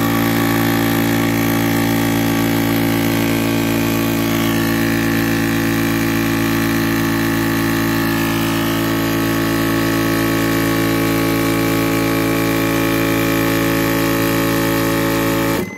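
Portable high-pressure PCP air compressor running steadily as it charges an airgun's submerged air tube for a leak test. It stops suddenly near the end.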